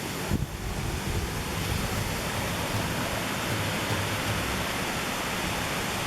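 Steady rushing noise with an irregular low rumble, the kind made by wind on an outdoor microphone or by rushing water.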